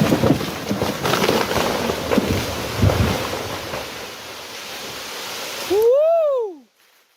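A large felled tree crashing down through branches: a loud rushing noise with cracks and thumps that dies away over a few seconds. Near the end comes a brief pitched sound that rises and then falls, and the sound cuts off suddenly.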